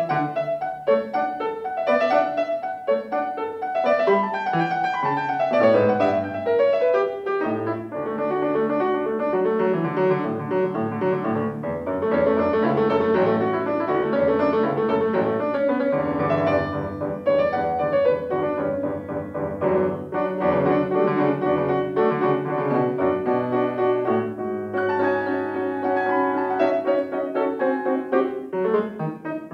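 Solo grand piano played continuously in a classical piece, a dense run of quick notes across the keyboard with no breaks.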